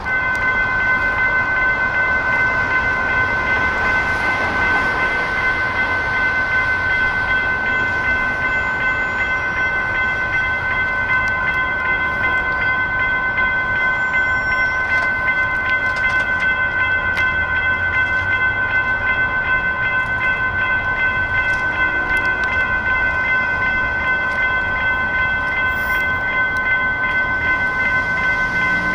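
Railroad crossing warning bell, the electronic kind, starts suddenly and rings continuously with a rapid, even ding as the grade crossing's warning activates for an approaching light rail train.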